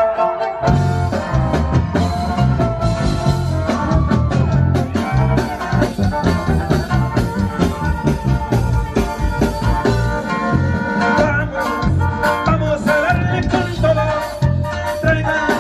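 Live norteño band music with a drum kit and bass keeping a steady beat under a melody line. It starts about half a second in.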